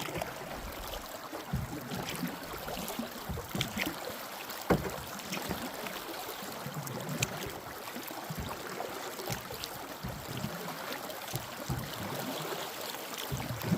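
A canoe being paddled through shallow, rocky river water: a steady rush of moving water with splashes of paddle strokes and scattered knocks, one louder knock about a third of the way in.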